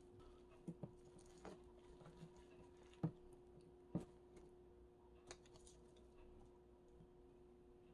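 Quiet handling of a bamboo gimbap rolling mat on a wooden board: a few soft taps and knocks as a roll is rolled and pressed, the two loudest about three and four seconds in, over a faint steady hum.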